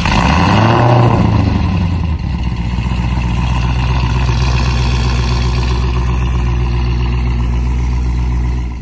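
Cadillac CTS-V's supercharged LSA V8 starting up through its aftermarket exhaust. It flares in revs about a second in, then settles to a steady idle.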